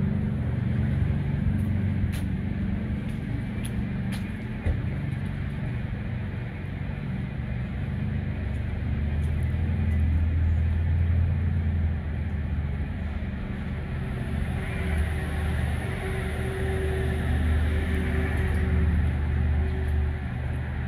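Street traffic: a steady low engine rumble from road vehicles, with a few faint clicks in the first few seconds.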